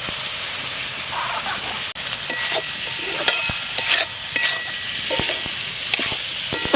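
Food sizzling in oil in a hot pan, with a utensil scraping and clinking against the pan as it is stirred; the clinks begin about two seconds in.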